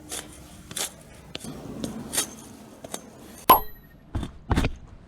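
Scattered light knocks and scrapes, with one sharp metallic clink that rings briefly about three and a half seconds in, followed by two heavier thuds.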